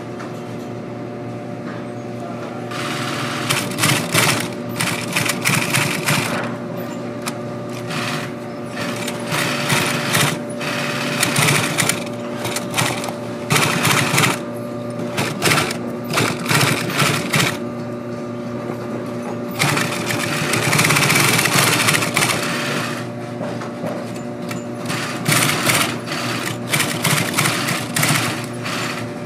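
Industrial post-bed sewing machine stitching a leather boot upper in short runs that stop and start, with a steady hum between runs.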